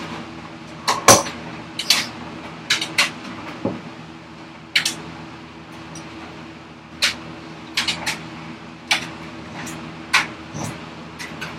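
Irregular knocks and clicks of a wooden workpiece and hand tools being handled and set down on a workbench while marking out, over a steady low hum.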